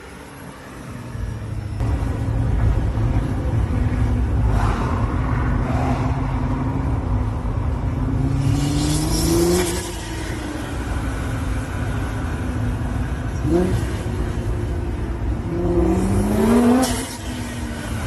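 Nissan GT-R R35's twin-turbo V6 accelerating twice, its note rising in pitch each time, with a turbo whistle and hiss at the top of each pull that cuts off sharply, over a steady low rumble.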